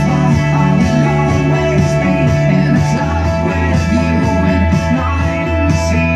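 Rock music played loud through speakers under test, with steady held bass notes.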